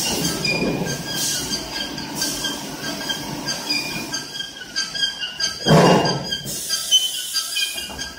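Filling-line machinery for 5-gallon water bottles squeaking, with many short high squeals coming and going, and a loud thump a little under six seconds in.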